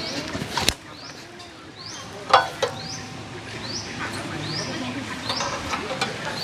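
A high chirping call repeated steadily, about two a second, from a bird or insect, with a few sharp knocks and clatters in between.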